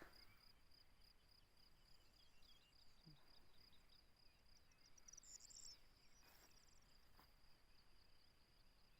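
Faint steady high-pitched chirring of crickets, with a short rapid bird trill about five seconds in.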